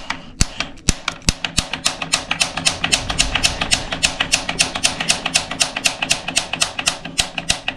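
Piezo igniter on a gas water heater's control valve clicked over and over, a few spaced clicks at first, then about six or seven a second: sparking at the pilot burner to light it.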